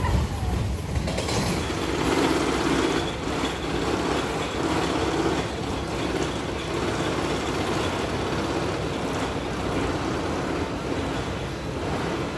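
Tennessee Tornado, an Arrow steel looping roller coaster, with its train running along the track: a steady rolling noise that swells slightly a couple of times.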